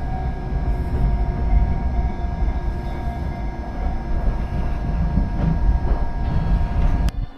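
Electric train running: a steady low rumble with a constant motor whine above it, which cuts off abruptly just before the end.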